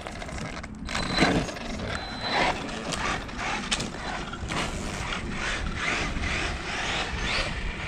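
Maverick Quantum RC truck running on a 3S LiPo battery on a road speed run, its motor and tyres making a continuous rough mechanical noise with a brief high whine about a second in.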